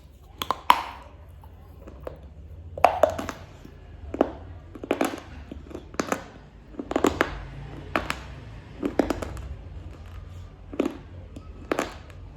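Crisp, crackling crunches of a dark chocolate Kit Kat wafer bar, close to the microphone: about a dozen sharp crunches, roughly one a second.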